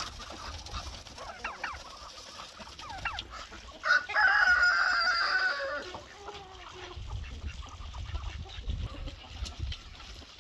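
A flock of chickens clucking around a feed trough. About four seconds in, a rooster crows once, loudly, for about two seconds, its call falling away at the end.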